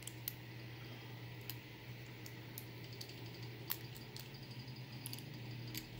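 Scattered light clicks and taps of small metal tools and a brass lock cylinder being handled while the lock is taken apart, over a low steady hum.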